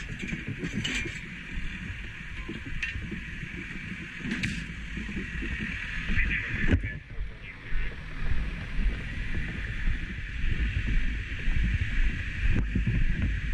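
Fire truck's diesel engine running close by, a steady low rumble, with a few sharp knocks from tools and the gate being handled.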